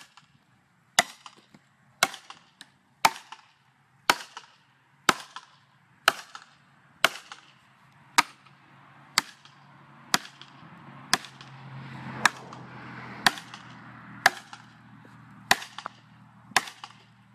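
Hammer driving a felling wedge into a tree's saw cut to tip the tree, with steady sharp strikes about once a second, seventeen in all, each ringing briefly.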